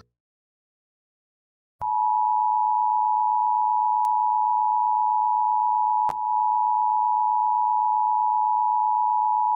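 Emergency Alert System attention signal: two steady tones sounding together just under 1 kHz, starting after about two seconds of silence and holding at a constant level. It announces the emergency alert message that follows.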